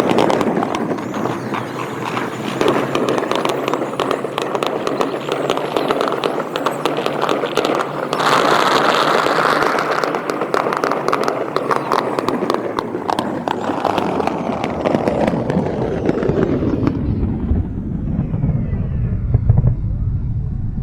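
Fireworks crackling and popping in rapid, dense volleys. About three-quarters of the way through the crackle dies away and a low rumble takes over.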